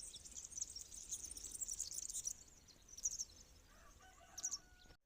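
Small birds chirping high and fast outdoors, busy for the first couple of seconds and then thinning to a few scattered calls, before the sound cuts off abruptly near the end.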